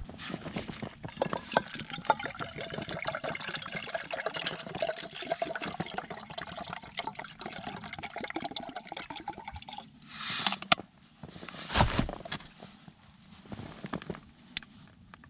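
Water pouring steadily into a container for about ten seconds, then stopping. A brief rustle and one sharp knock follow, then a few faint clicks.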